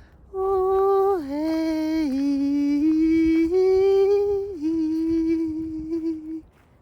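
Wordless sacred chant: a single voice sings a few long held notes, stepping down and back up in pitch. It starts just after the beginning and stops about a second before the end.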